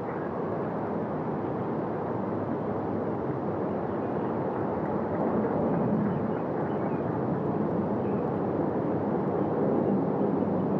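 Steady outdoor background noise picked up by a course microphone: an even low rumble and hiss with no distinct events, swelling slightly about halfway through.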